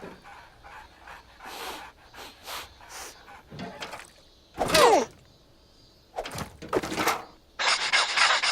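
Cartoon voices and sound effects: short nonsense vocal noises and light knocks, with a loud squeaky gliding vocal cry about five seconds in. A steady hissing noise starts near the end.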